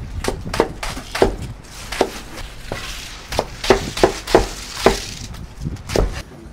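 Large kitchen knife chopping a head of raw cabbage into chunks on a cutting board: about a dozen crisp chops at an uneven pace, the blade crunching through the leaves and knocking on the board, stopping shortly before the end.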